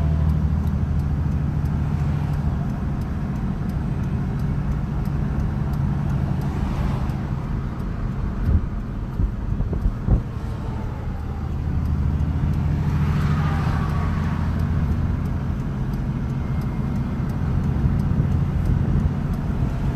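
A farm machine's engine running at a steady drone while it travels along a road. Vehicles rush past twice, about seven and thirteen seconds in, and a few short knocks come around nine to ten seconds.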